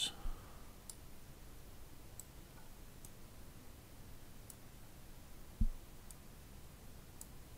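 Faint computer mouse clicks, about six of them spread a second or so apart. A single dull thump, the loudest sound, comes a little past halfway.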